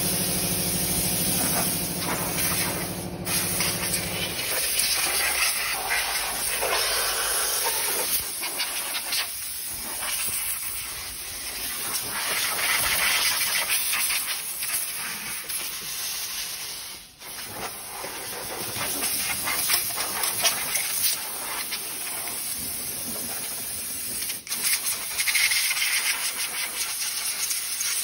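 Compressed-air blow gun hissing as dust is blown off a flour mill's roller mill, the hiss rising and falling as the nozzle moves and breaking off briefly twice. A low machine hum runs under it for the first few seconds, then stops.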